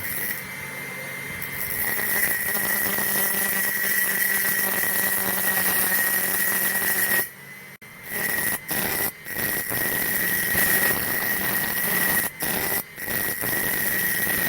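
Homemade angle grinder driven by a 775 DC motor running at high speed, a steady high-pitched whine over a hiss. The sound cuts out suddenly a few times for a moment and comes straight back.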